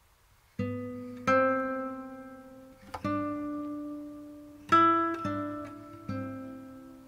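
Background music: slow acoustic guitar, single plucked notes and chords each left to ring and fade, beginning about half a second in after near silence.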